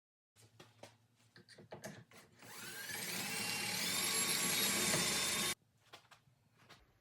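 A few light knocks and handling taps, then an electric power tool motor running for about three seconds, its whine rising in pitch as it speeds up, before it cuts off suddenly.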